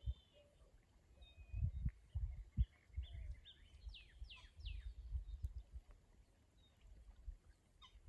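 Birds chirping and calling, with a few quick downward-sweeping notes about four to five seconds in, over irregular low rumbling gusts of wind on the microphone.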